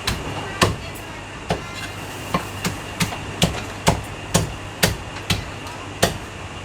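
Cleaver chopping roast duck on a chopping block: about a dozen sharp chops, roughly two a second and slightly uneven, over a steady low hum.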